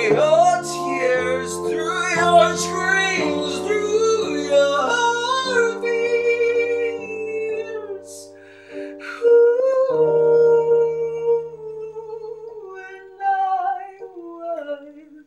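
A man singing a slow ballad over sustained chords on a digital piano, his voice gliding through runs and long held notes. There is a breath about eight seconds in, and near the end the vocal line steps down.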